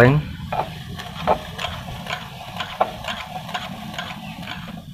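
Scattered light metallic clicks and taps as a stripped Honda Mega Pro motorcycle engine is handled, over a steady low hum.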